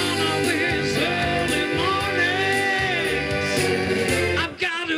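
A man sings live into a microphone over amplified band accompaniment, his voice bending and holding long notes. The accompaniment stops about four and a half seconds in, as the song ends.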